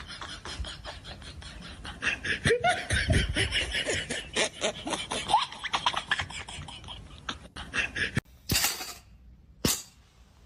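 A person laughing in quick repeated bursts, followed near the end by a few short noisy bursts and a sharp click.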